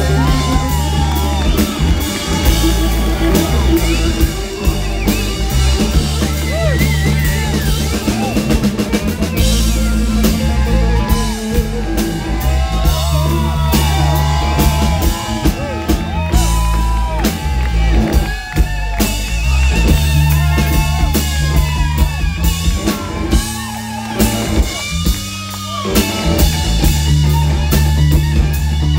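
Live blues-rock band playing loud: drum kit and electric guitar over a heavy, steady bass line.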